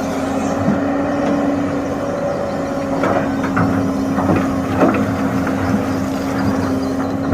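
Hitachi hydraulic excavator running steadily, its engine and hydraulics giving a constant hum. A cluster of short knocks and rattles comes about three to five seconds in.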